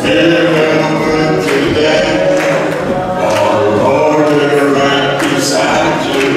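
Church choir singing: many voices together in a continuous sung line.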